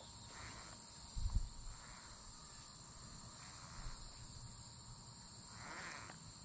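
Quiet, steady high-pitched drone of insects, with one short low thump about a second in.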